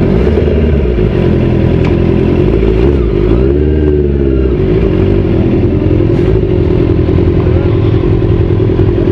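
Motorcycle engine running steadily under way. A few seconds in, its pitch briefly rises and falls back as the throttle is opened and eased off.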